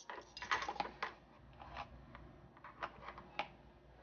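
Light metal clicks and taps from a set of metal measuring spoons while ground black pepper is measured and tipped into the bowl: a quick run of clicks in the first second, then a few single clicks.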